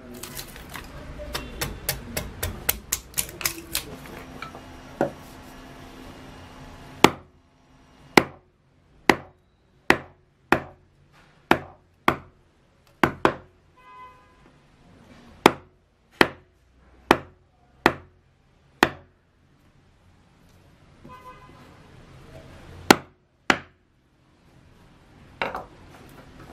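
Carving gouge driven into cedar wood with a mallet: quick light taps at first, then a steady run of sharp knocks about one a second, with a few more near the end.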